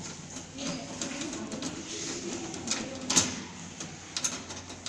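Screwdriver backing a screw out of a steel desktop computer case: small metallic clicks and scrapes, the sharpest click a little after three seconds in.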